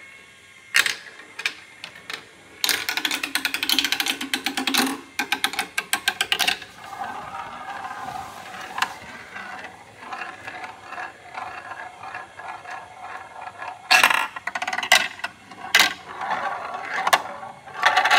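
Glass marble rolling and clattering through a plastic marble run: a fast rattle along the track for about two seconds, then a steady rolling whirr as the marble circles a plastic funnel bowl, with sharp clicks and knocks near the end.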